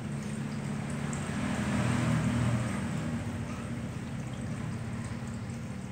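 Two cats eating soft food from a small glass dish, the faint sounds of chewing and licking over a steady low hum.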